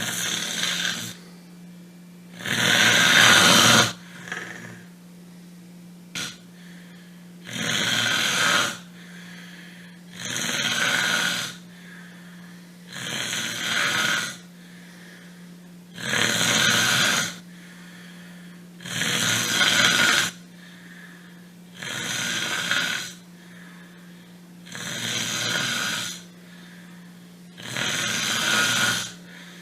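A person snoring: about ten long, noisy snores, one every two to three seconds, over a steady low hum.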